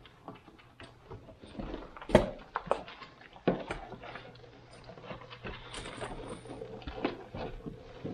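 Irregular knocks, clicks and shuffling at a wooden goat milking stand, as a goat eats treats with her head in the stanchion and a stainless steel milk pail is handled beside her. The loudest knocks come about two seconds and three and a half seconds in. A faint steady low hum starts about halfway through.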